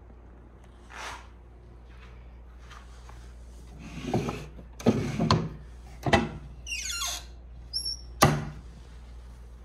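Handling noises: a run of sharp knocks and clatters, loudest about five and six seconds in and again near the end. A short scraping sweep comes about seven seconds in, and a brief high squeak just before the last knock.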